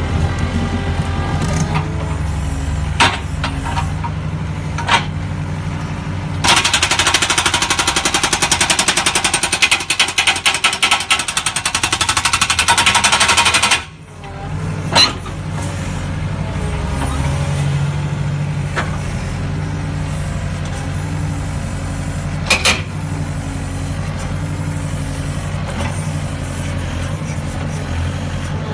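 Mini excavator engine running steadily while its hydraulic breaker hammers into rock, a rapid rattling for about seven seconds in the middle that stops suddenly. A few single sharp knocks of steel on rock come before and after.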